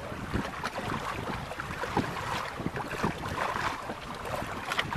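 Wind buffeting the microphone over choppy water, with small waves lapping and slapping against a boat hull in short irregular knocks.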